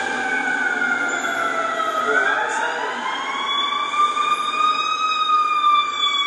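Fire engine siren wailing, its pitch sliding slowly down, then up, then starting down again.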